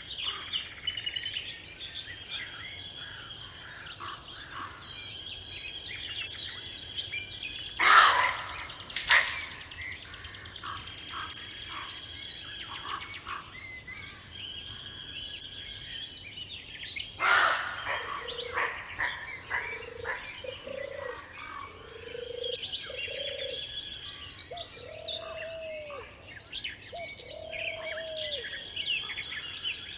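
A chorus of many songbirds chirping and singing together, with two louder sharp calls about 8 and 17 seconds in. In the second half, a low hooting note repeats every second or two.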